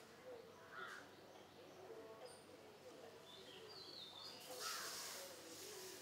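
Faint outdoor ambience with distant birds calling: a few short high chirps, plus a harsh, caw-like call about a second in and again near the end.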